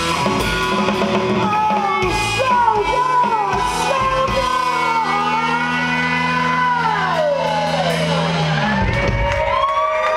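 Live rock band playing loud: electric guitar with a high, pitch-bending sung wail over it. A low held chord rings under it and stops about nine seconds in, leaving the high voice and guitar line.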